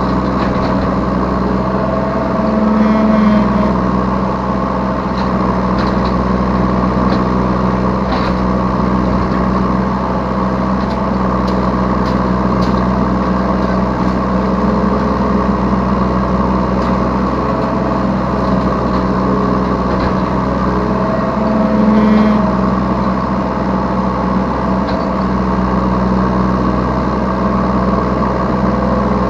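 Yanmar B3 Sigma 3-ton mini excavator's diesel engine running steadily while the machine works. Twice the engine note rises and gets louder for about a second, a few seconds in and again about two-thirds of the way through, with a few faint clicks between.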